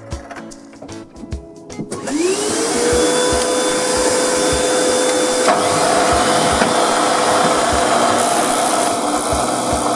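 An electric motor switches on about two seconds in: its whine rises quickly to a steady pitch. It then runs on with a loud, even rushing noise, over soft background music.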